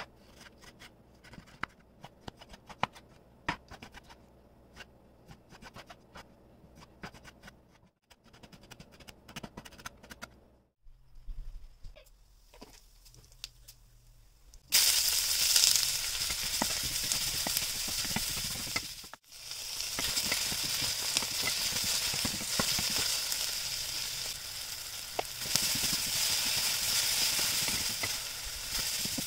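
A knife chopping coriander leaves on a wooden board: quick, uneven taps. About halfway through, hot oil in a frying pan starts sizzling loudly and keeps frying steadily.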